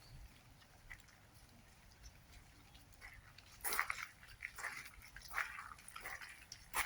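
Footsteps on a wet, rain-soaked forest trail, starting about halfway in at roughly one step every 0.7 s, each a short squelching crunch, over a faint steady hiss of rain.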